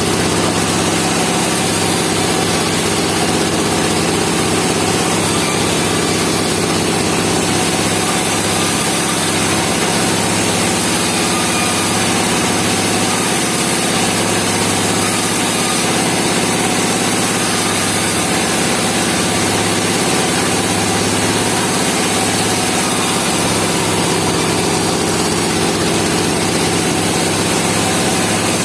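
Sawmill engine running steadily under an even load, with no change in pace.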